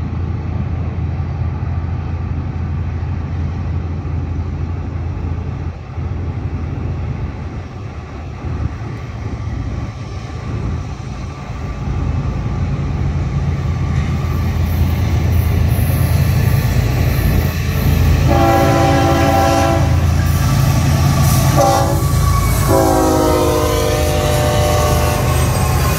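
Approaching diesel freight train: a low engine rumble grows louder as the locomotives near. The lead locomotive's air horn then sounds a long blast, a short one and a final long one, and the pitch of the last one drops as it passes.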